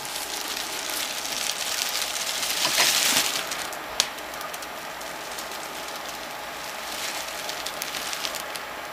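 Black plastic garbage bag crinkling and rustling as a Noctua NF-F12 PWM fan blows it full of air, loudest about two to three seconds in. One sharp click about four seconds in.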